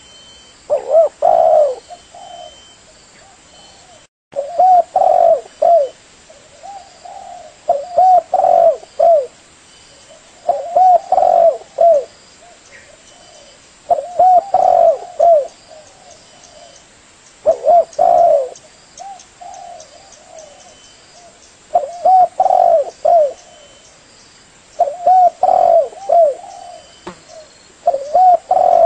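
Spotted dove cooing: a phrase of three or four arched coos, repeated about every three seconds.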